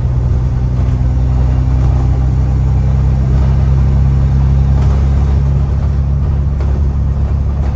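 Alexander Dennis Trident/Enviro400 double-decker bus engine heard from inside the passenger saloon while under way: a loud, steady low drone at an even pitch. The loudness of the drone is the sign of a blown exhaust.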